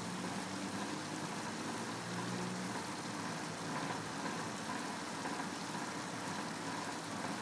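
Small salted fish frying in shallow oil in a wok, a steady sizzle. The fish are just starting to dry out and crisp before being turned.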